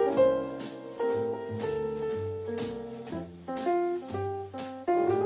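Light instrumental background music: plucked notes in an even rhythm over a bass line.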